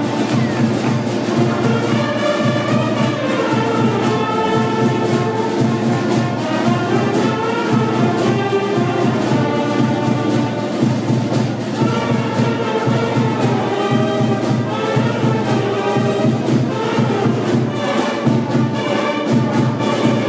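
Fanfare band of saxophones, trumpets, a trombone and drums playing a tune with a steady beat.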